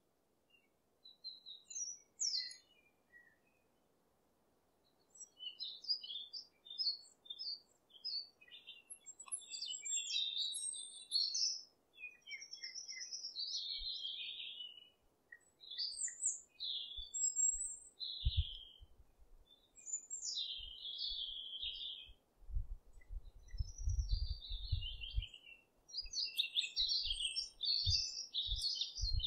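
Songbirds chirping and singing, many short overlapping calls and trills. Low rumbles come and go in the second half.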